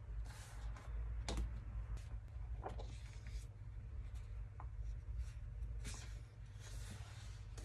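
Large A3 paper pages of a softcover book being turned and slid by hand: several short rustles of paper with a few sharp taps, over a steady low hum.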